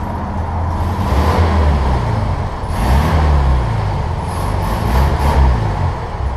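Classic VW Beetle's air-cooled flat-four engine running while the car is driven, its revs rising and falling several times.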